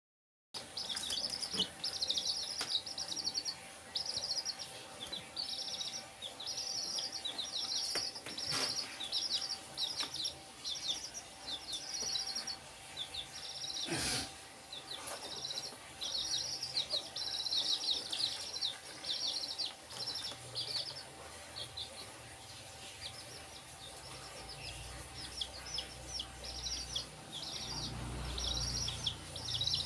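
Several young chicks peeping over and over in quick runs of high chirps. A couple of short knocks come midway, and a low rumble near the end.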